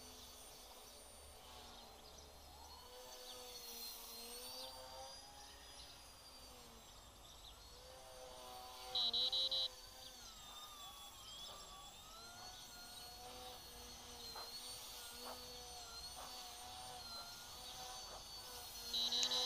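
Faint whine of FPV quadcopter motors, its pitch sliding up and down with the throttle. Twice, about nine seconds in and again near the end, a short loud run of high electronic beeps cuts through.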